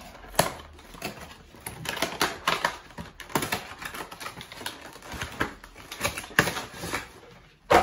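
The cardboard and plastic packaging of a Pokémon card collection box being opened and handled: a string of irregular clicks and taps, with a few sharper snaps, the loudest near the end.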